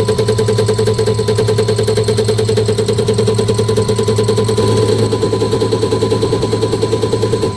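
Diesel injector test bench running a Bosch common-rail injector at full delivery: a steady machine hum with a fast, even pulsing of the injector firing, about ten beats a second. It stops near the end.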